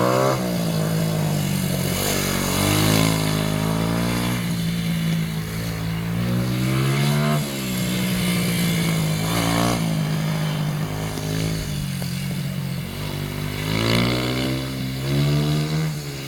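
Polini minimotard's small engine being ridden hard, its pitch climbing and then dropping again and again as the throttle is opened and shut.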